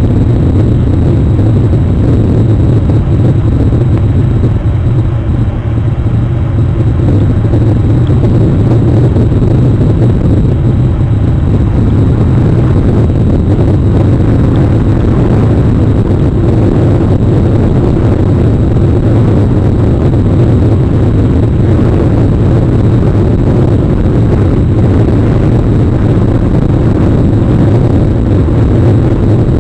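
Rain on an outdoor webcam's microphone, heard as a loud, steady low rumbling noise that does not let up.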